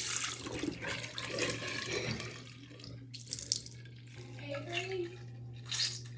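Water running from a tap and splashing in a sink, a steady hiss that drops off after about two and a half seconds.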